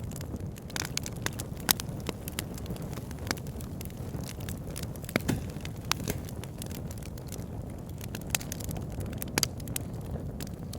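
Wood campfire burning: a steady low rumble of the flames with irregular sharp crackles and pops, a few of them louder.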